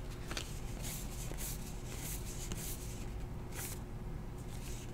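2018 Heritage baseball trading cards being slid and flipped through by hand: a few soft papery swishes, about one a second.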